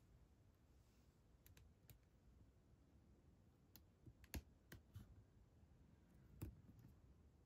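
Near silence: room tone with a scattering of faint clicks and taps, the two loudest about four seconds in and again two seconds later.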